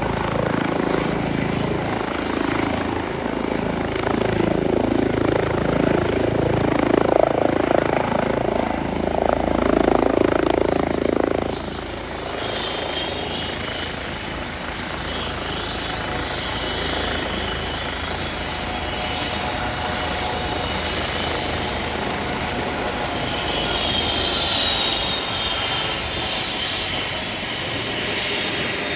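Airbus H135 twin-turbine helicopter's rotor and turbine noise, loudest for the first eleven seconds or so, then dropping back to a steadier, lower level with a faint high whine above it.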